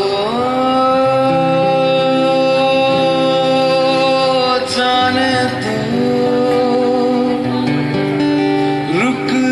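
A man singing to his own acoustic guitar chords. He holds one long note for about four seconds, then sings on over changing chords and slides up into a new note near the end.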